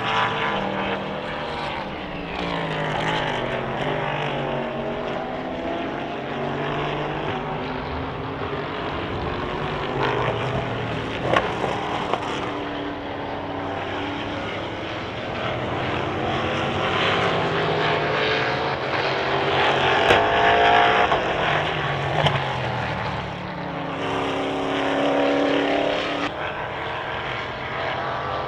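Endurance race cars running past on the circuit, several engines overlapping, their notes rising and falling as they accelerate, shift and go by, with a few sharp cracks along the way.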